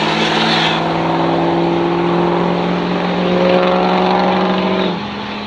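Diesel pickup trucks, one of them a Ford Power Stroke flatbed, at full throttle down a drag strip, moving away. The engine note holds steady and then climbs slowly. About five seconds in it gets quieter and jumps to a different pitch.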